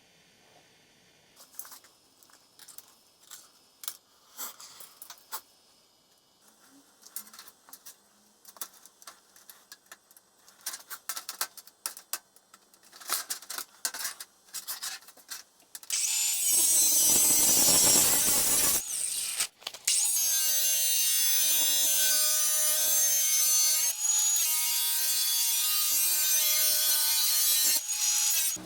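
Scattered small clicks and taps of tools or parts being handled, then an electric power tool starts suddenly about halfway through and runs loudly and steadily with a pitched whine, dipping briefly once before running on until near the end.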